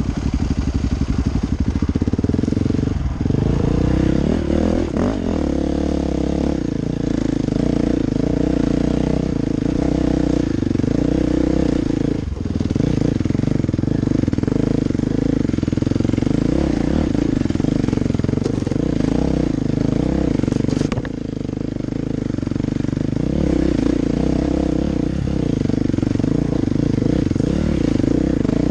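Dirt bike engine running close to the microphone, the throttle opening and easing off as the bike is ridden over a rough trail. Its sound drops briefly a few times.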